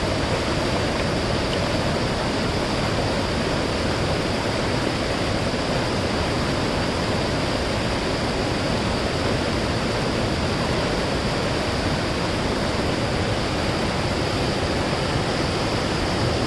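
Mountain stream flowing, a steady rushing of water.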